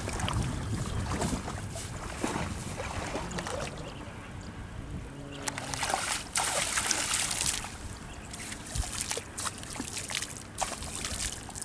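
Water splashing and sloshing, with a longer burst of splashing about six seconds in and a shorter one near the end.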